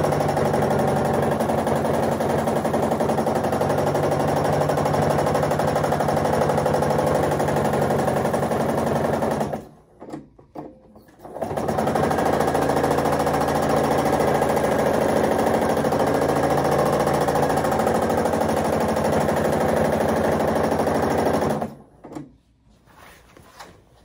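Domestic sewing machine stitching at a steady high speed during free-motion quilting. It stops abruptly for about two seconds near the middle, runs again, and stops about two seconds before the end.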